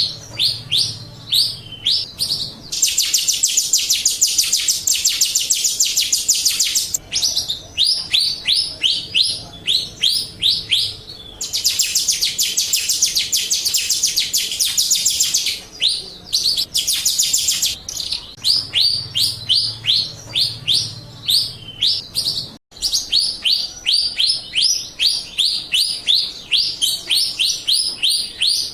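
Jalak rio starling song: a long run of quick, high whistled notes, each sliding downward, about three or four a second. It is broken three times by stretches of fast, harsh chattering, the longest starting about three seconds in and about eleven seconds in.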